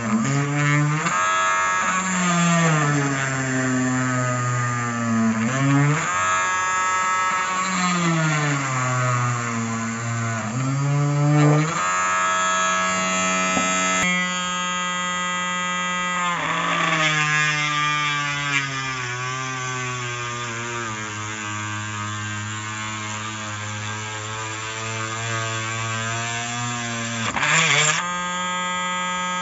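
Homemade cordless drill's RS550 brushed DC motor whining at high speed as a small bit drills into wood; its pitch sags and climbs back again and again as the bit is pushed in and eased off.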